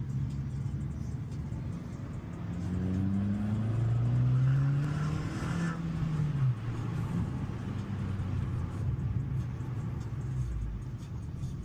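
Abarth 595 Competizione's turbocharged 1.4-litre four-cylinder on its stock exhaust, running steadily. Its engine speed climbs over about three seconds, holds briefly, then drops back to a steady idle about halfway through.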